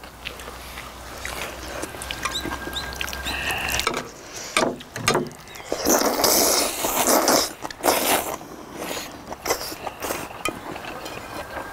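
People slurping noodles, loudest for about two seconds from around six seconds in, with chewing and chopsticks clicking against bowls.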